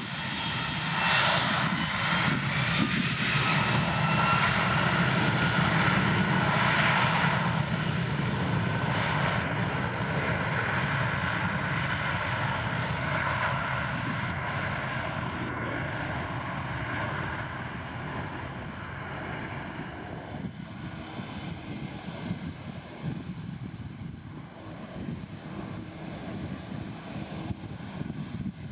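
Boeing 757 jet engines at takeoff power: the engine whine rises in pitch early on, the noise peaks a few seconds in, then fades steadily as the jet moves away and climbs out.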